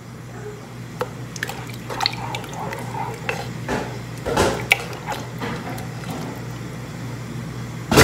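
Wooden spoon stirring soup in a pressure-cooker pot: liquid sloshing, with scrapes and knocks of the spoon against the pot and a louder clatter near the end, over a steady low hum.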